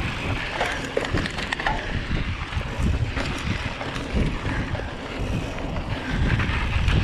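Wind buffeting the microphone while a Giant Trance mountain bike rolls over a dirt singletrack, with tyre crunch and scattered clicks and rattles from the bike over bumps, most in the first two seconds.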